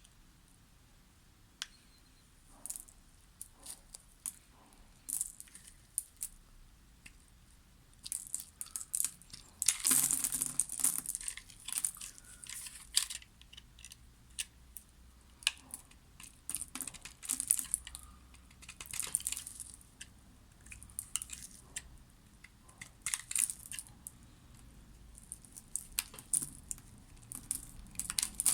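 A knife cutting through a bar of soap into cubes: an irregular run of crisp clicks and crackles, densest for a few seconds about ten seconds in.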